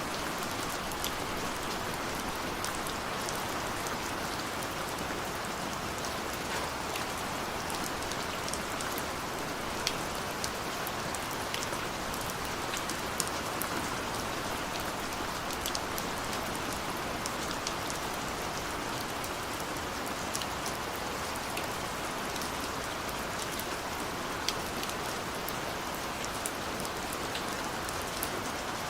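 Steady rain pattering on a window pane, a constant hiss with many small, irregular drop ticks scattered through it.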